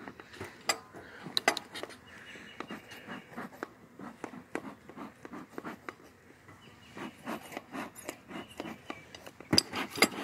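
Beekeeping tools being handled: irregular metal clinks, taps and scraping, with a cluster of louder clanks near the end.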